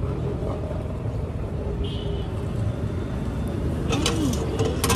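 Steady rumble of road traffic, with a couple of short sharp clicks near the end.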